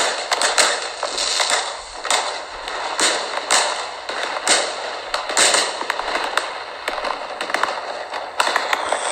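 Fireworks sound effect: a dense run of sharp bangs, a few a second, over continuous crackling.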